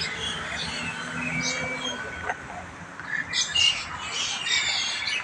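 A flock of mynas chattering and squawking together at their night roost, many calls overlapping. The chatter thins for a moment about two seconds in, then swells again from about three seconds.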